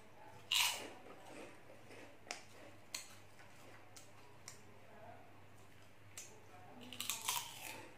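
Crunchy puffed tube-shaped corn snacks being bitten and chewed: a loud crunch about half a second in, scattered single crackles, and a burst of several crunches near the end.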